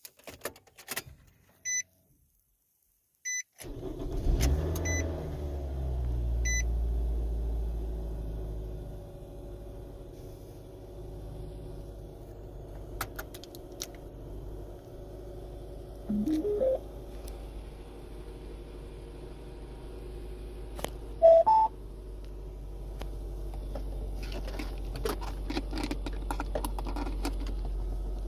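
Keys jingling and four short electronic beeps, then the 2007 Nissan Sentra SE-R's 2.5-litre four-cylinder engine starts about four seconds in, flares up briefly and settles into a steady idle. Two brief rising chirps sound over the idle, near the middle.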